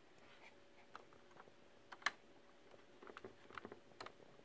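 Light clicks and taps of an Ethernet cable's plug being handled and pushed into the port of a Ubiquiti UniFi NVR. There is one sharper click about two seconds in and a flurry of small clicks near the end, over a faint steady hum.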